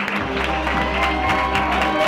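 Audience applause, with music coming in over it about a quarter of a second in: a held bass note and sustained higher tones.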